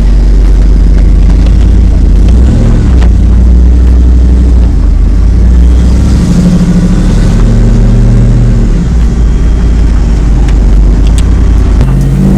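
Supercharged V8 of a 2002 Ford F-150 Lightning race truck running loud, heard from inside the cab, its pitch stepping up and down several times.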